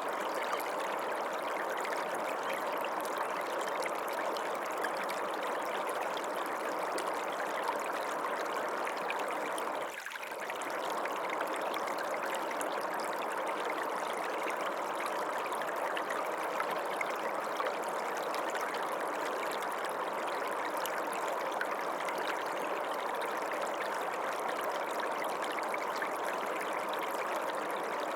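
Creek water running steadily, an even rushing sound, with a brief drop in level about a third of the way through.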